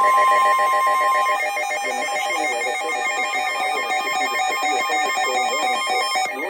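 Emergency Alert System alert tones: a steady tone near 1 kHz that stops about a second in, over a rapidly pulsing electronic alert signal.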